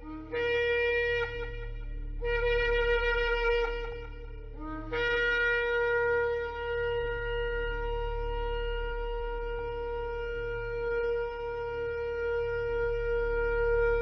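Shofar being blown: two short blasts, then one long, steady, held blast of about nine seconds.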